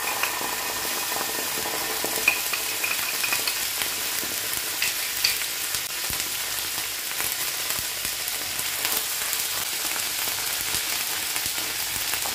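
Ginger-garlic paste sizzling steadily in hot oil and butter with cumin seeds on a tawa, with a few light clicks. Near the end a wooden spatula stirs it through the pan.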